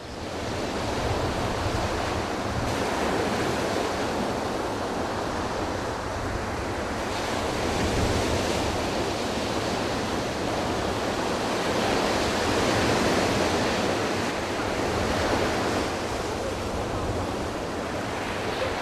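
Sea surf breaking on a sandy beach: a steady rushing wash of waves that swells and eases every few seconds.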